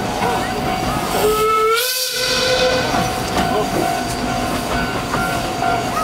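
Miniature steam train running, its wheels rattling on the rails. About a second in, the locomotive's steam whistle blows once, rising slightly in pitch and then holding for over a second, with a rush of steam hiss at its start.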